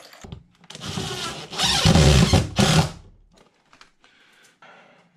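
Cordless drill driving a screw, running for about two seconds from about a second in, louder in its second half, followed by light handling sounds.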